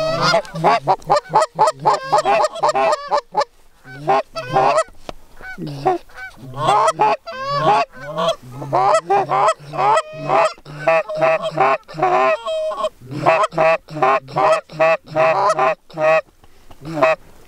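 Hand-held goose call blown hard and fast: a near-continuous run of loud honks and clucks, several a second, broken by short pauses, calling to a goose flying overhead.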